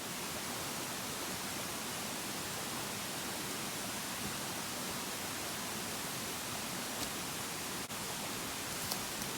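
Steady, even rush of a mountain river or stream. A brief dropout comes about eight seconds in.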